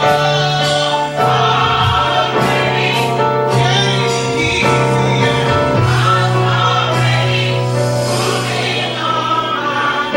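Church choir singing a gospel song, the voices holding long notes over a steady low accompaniment.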